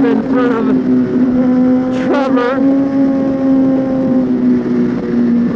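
Suzuki GSX-R1000's inline-four engine running at a steady high rpm while riding. A short rising-and-falling voice-like sound comes about two seconds in.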